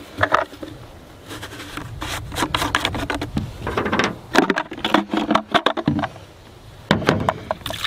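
Irregular plastic clicks, knocks and rubbing as the dirty-water tank of a Bissell SpotClean Pro Heat spot cleaner is taken apart by hand: its cap ring twisted off and the grey plastic insert pulled out of the tank.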